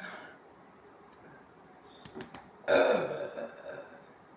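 A woman's loud belch about two and a half seconds in, lasting about a second, after a few faint clicks.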